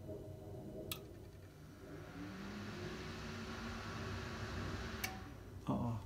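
Desktop PC powering up: its cooling fans start about two seconds in and spin up into a steady, building whir with a low hum that rises and then holds. There is a sharp click about a second in and another about five seconds in.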